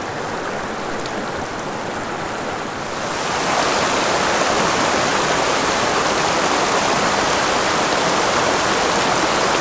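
Water of a small, shallow rocky creek rushing over stones in a steady rush that grows louder and brighter about three seconds in.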